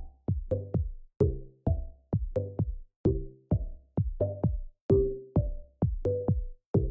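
Electronic background music with a drum-machine beat, about two to three hits a second.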